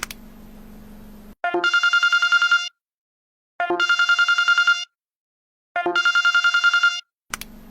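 Mobile phone ringtone imitating an old telephone bell: three rapid trilling rings, each a little over a second long and about two seconds apart. A low buzz comes before the first ring and again near the end.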